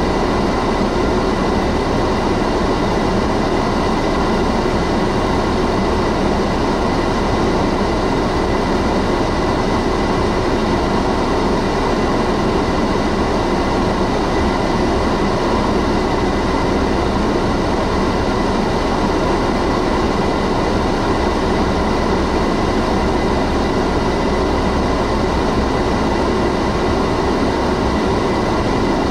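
Automatic car wash machine running over the car, heard from inside the cabin as a loud, steady rushing rumble with a thin, steady high whine above it.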